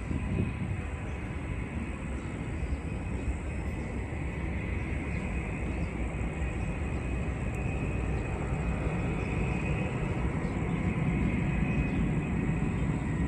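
Jet airliner engines running at a distance, a continuous rumble with a thin high whine over it, swelling slightly in the last few seconds.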